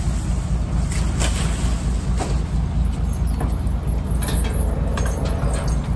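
Truck engine idling with a steady low rumble, with a few light metallic clinks from the elephants' chains on the truck bed.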